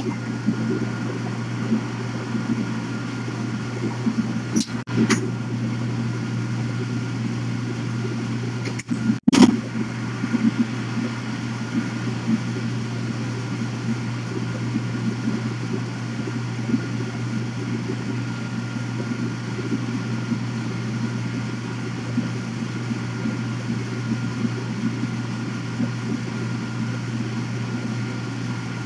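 Steady low mechanical hum, fan-like, with a faint steady whine above it. A couple of quick clicks come about five seconds in, and a sharp click with a momentary dropout just after nine seconds.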